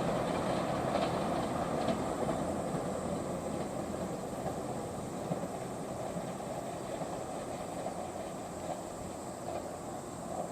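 Train running along the track and slowly fading as it moves away, a steady rumble with faint wheel noise.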